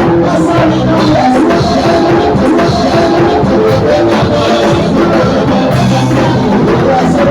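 Band music with drum kit and guitar playing a steady beat, loud and unbroken throughout.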